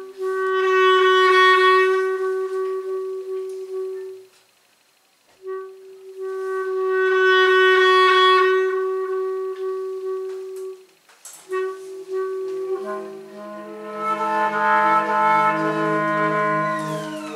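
Trombone holding two long, steady notes of several seconds each, with a short silence between. About twelve seconds in, several held notes sound together as bowed double basses enter with low sustained tones beneath.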